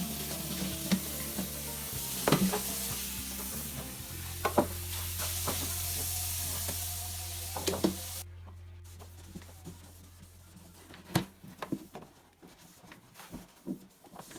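A steady hiss with scattered light knocks and clicks of things being handled. The hiss cuts off abruptly about eight seconds in, leaving the knocks over a low hum.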